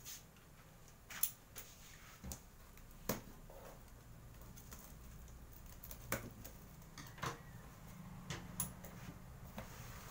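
Scissors cutting the strap tied around a cardboard box, with irregular sharp clicks and knocks from the blades and the cardboard as the box is handled.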